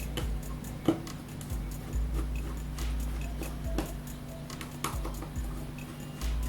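Irregular small clicks and taps from hand tools working on a OnePlus 2 smartphone's casing and parts during a battery replacement, over background music.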